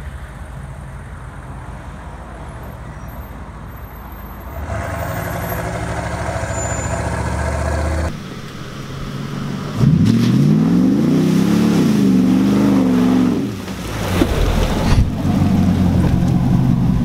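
Pickup truck engines revving and running across several abrupt cuts. The loudest part, about ten seconds in, is a rev that climbs and falls back over a few seconds. Near the end, an engine runs steadily.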